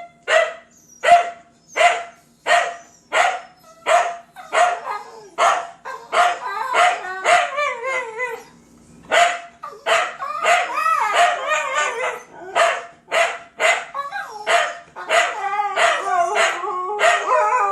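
Dogs barking: sharp single barks about every 0.7 seconds at first. After about six seconds they overlap and break into long wavering howl-like cries, with a brief lull in the middle.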